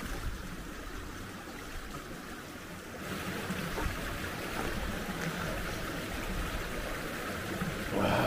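Shallow mountain stream running over rocks, a steady rushing of water that grows louder about three seconds in.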